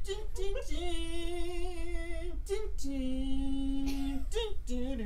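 A woman singing a slow melody. Two long notes are held with a slight vibrato, the second lower than the first, with short notes before, between and after them.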